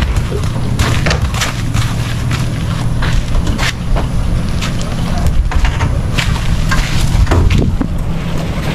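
A horse's hooves knocking and crunching in irregular steps as it backs down out of a horse trailer and walks on gravelly ground, over a steady low rumble of wind on the microphone.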